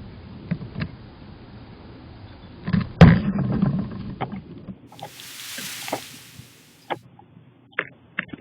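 Knocks and scratching clicks from a squirrel clambering on a bird feeder, picked up close by a feeder-mounted camera's microphone over a low rumble. The loudest sound is one heavy thump about three seconds in. Later comes a couple of seconds of hiss, then a few more sharp clicks.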